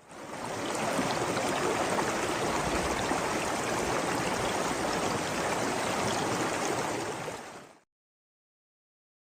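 River water flowing and rushing in a steady, even stream, fading in at the start and fading out about three-quarters of the way through.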